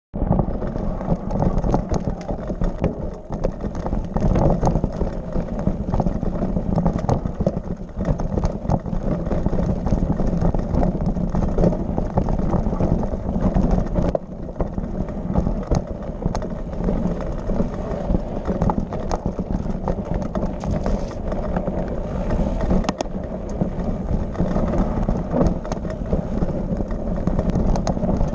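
Bike riding over a rough, rocky trail: a steady rumbling noise dense with small knocks and rattles from the bike bouncing over stones.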